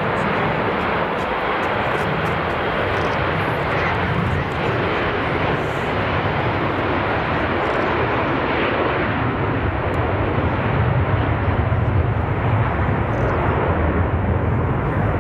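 Boeing 737-200 jet engines (Pratt & Whitney JT8D low-bypass turbofans) running as the airliner rolls on the ground: a loud, steady jet noise whose low rumble grows stronger in the last few seconds.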